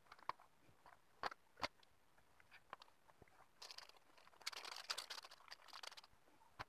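A few small, sharp clicks as electronic components are handled on a perforated circuit board, then a clear plastic parts packet crinkling for about two and a half seconds from a little past halfway.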